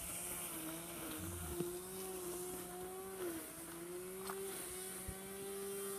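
A steady mechanical drone of a running motor, its pitch wavering slightly, with a few faint clicks.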